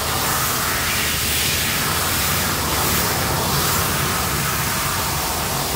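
CNC cutting table's torch cutting through steel plate: a steady, even hiss.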